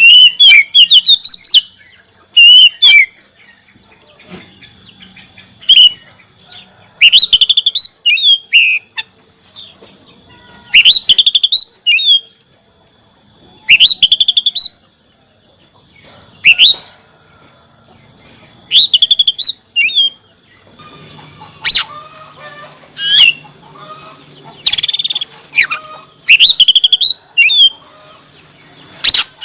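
Oriental magpie-robin (kacer) singing loud bursts of rapid, varied whistled notes, each about a second long and repeated every two to three seconds, with a few harsher, rasping calls near the end.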